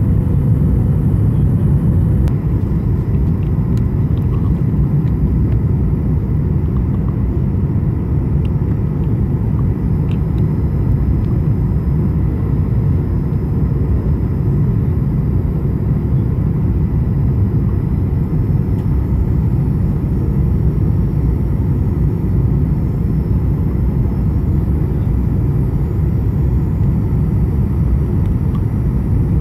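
Cabin noise of a Boeing 737-800 on its landing approach, heard beside its CFM56-7B engine: a steady low rumble of engine and airflow.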